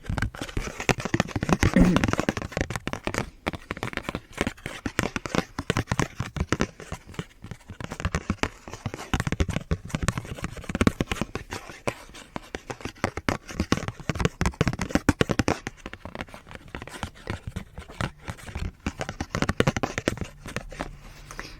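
A fake Pokémon card handled close to the microphone: fast, irregular clicks, scratches and crinkles of fingers working the card.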